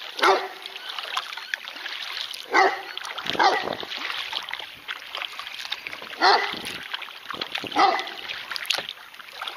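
A dog barking in short single barks, about five of them a second or more apart, over the splash of a kayak paddle dipping in calm water.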